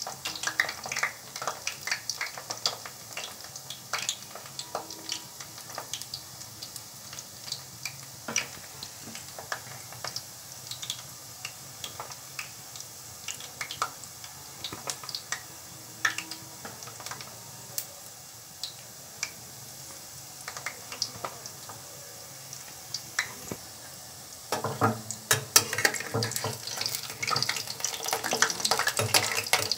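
Dough balls frying in hot oil in a pan, a steady sizzle with scattered crackles and pops. About three-quarters of the way through, a spatula starts stirring and turning them, and the frying grows louder and busier.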